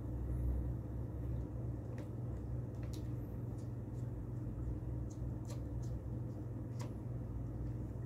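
A few small clicks and taps from a screwdriver and a metal laptop SSD caddy being handled, over a steady low hum.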